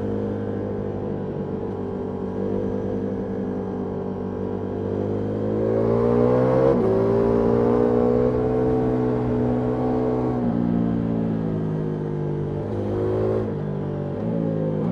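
Ducati Multistrada V4S Rally's V4 engine running through an Akrapovic exhaust, climbing in pitch as it accelerates and breaking sharply at a gear change about seven seconds in. The pitch drops again around ten seconds and changes twice more near the end as the rider works the gears.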